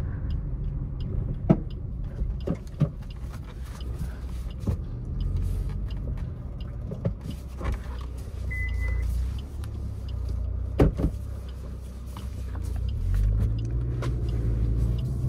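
Maruti Swift AGS running, heard from inside the cabin as a steady low rumble that swells near the end. A few scattered clicks and knocks, and one short high beep a little past halfway.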